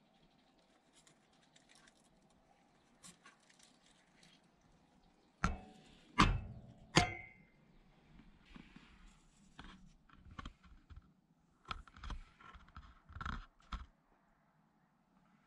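Handling noises from someone moving about among boxes and clutter. Three loud knocks come about five to seven seconds in, the last with a brief ring, followed by a run of lighter clicks and taps.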